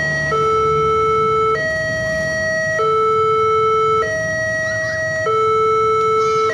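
Electronic warning alarm of a railway level crossing sounding its two-tone signal, alternating a lower and a higher tone about every second and a quarter. The crossing is still signalling closed just after the train has passed, while the barrier lifts.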